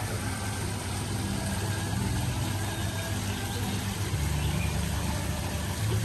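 A motor running with a steady low hum.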